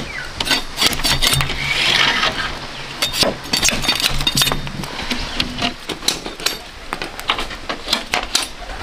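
A machete striking and splitting bamboo strips: a quick, irregular run of sharp knocks and cracks, with a low steady hum underneath for the first few seconds.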